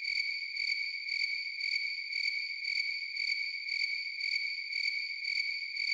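Crickets chirping sound effect: a steady high trill pulsing about twice a second over otherwise clean silence, used as the comic 'awkward silence' gag.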